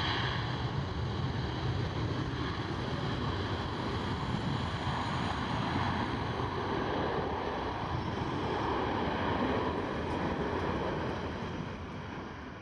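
Wamos Air Airbus A330's jet engines running at high power during its takeoff roll: a steady, even rumble with wind buffeting the microphone. It fades away near the end.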